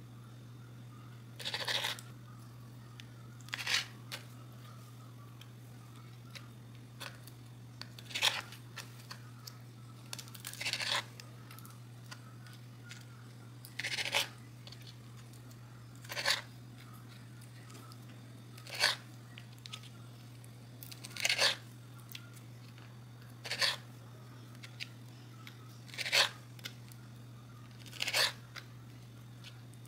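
Kitchen knife cutting the tails off shrimp against a wooden cutting board: a short crunching cut every two to three seconds, about a dozen in all, over a steady low hum.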